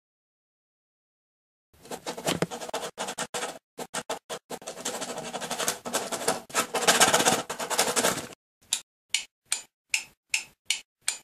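Silent at first. From about two seconds in, a pencil scribbles hard and fast on paper in dense scratching strokes with brief breaks. From about eight seconds in this gives way to short, separate, evenly spaced strokes, about two or three a second.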